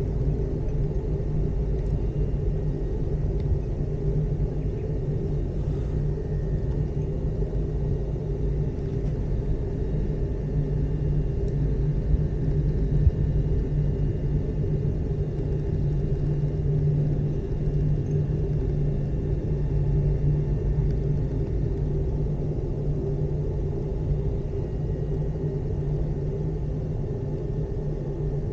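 Steady low rumble of a moving aerial ropeway gondola heard from inside the cabin, with faint high whines held through.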